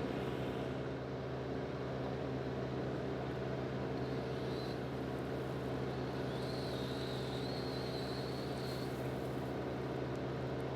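Woodland Mills wood chipper running steadily, a constant low machine drone, with a faint high whine that comes and goes about halfway through.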